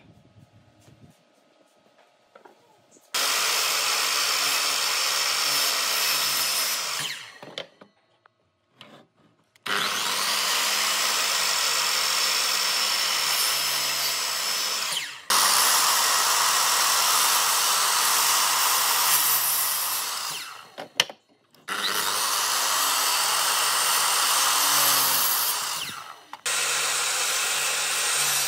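Power tool running on wood in five runs of a few seconds each, each starting abruptly and tapering off when released, with a steady high whine over the cutting noise.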